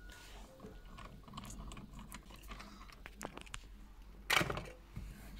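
Light clicks, taps and handling noises from a steering wheel being worked off its column after its centre bolt is undone, with one louder, short knock-and-rustle about four seconds in.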